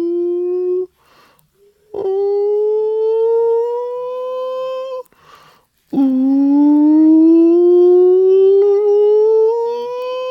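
A person's voice holding three long tones, each sliding slowly upward in pitch, with a quick breath drawn between them.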